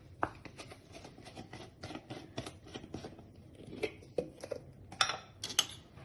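Kitchen handling sounds: a string of light, irregular clicks and knocks, with two louder clatters about five seconds in.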